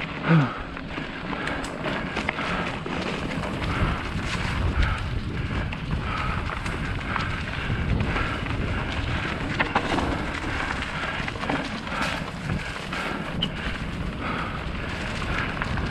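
Wind buffeting the camera microphone while riding a mountain bike along a dirt trail, with a steady rush of noise broken by frequent small knocks and rattles. A brief falling tone sounds right at the start.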